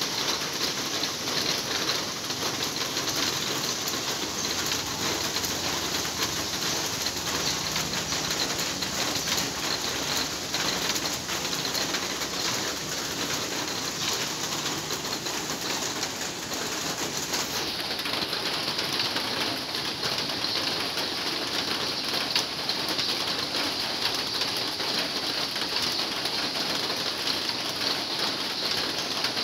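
Heavy rain falling on a large sheet-metal roof: a steady, even hiss with no breaks.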